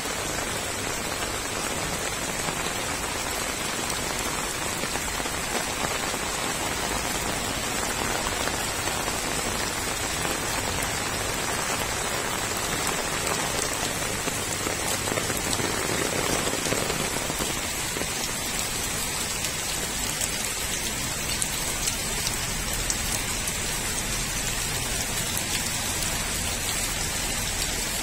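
Rain falling steadily on wet concrete paths, puddles and beds of potted seedlings: a continuous, even hiss.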